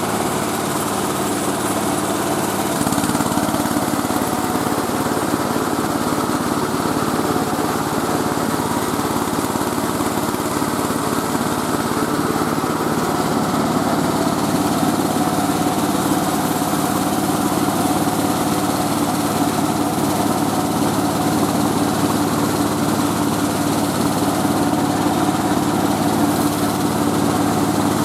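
Mobile rice milling machine running steadily, its engine and milling drive giving a continuous drone. About three seconds in it grows a little louder and fuller, then holds steady.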